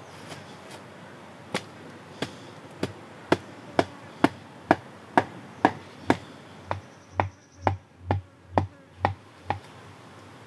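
A wooden mallet carved from a log section pounds a sharpened wooden stake into the ground. The knocks come steadily at about two a second, beginning about a second and a half in and stopping shortly before the end. The later strikes land with a deeper thud.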